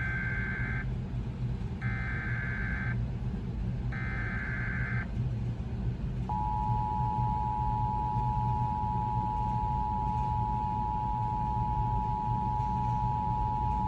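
Emergency Alert System broadcast tones: three short bursts of warbling SAME header data about two seconds apart, then, about six seconds in, the steady two-tone EAS attention signal, which holds without a break. Together they announce an incoming alert, here a severe thunderstorm warning.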